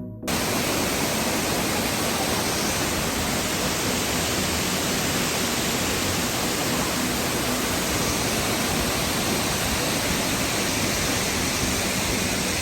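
Steady, loud rush of Pearl Shoal Waterfall, a wide cascade dropping about 40 m, heard close to the falling water. It begins abruptly at the start as the music cuts off.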